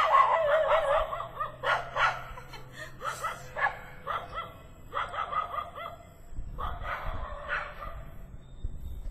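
Dog howling in a series of short, wavering cries broken by pauses.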